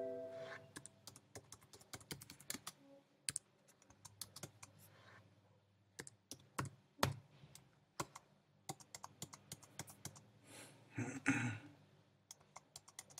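Computer keyboard typing: scattered, irregular key clicks as text is entered, with a brief louder noise about eleven seconds in.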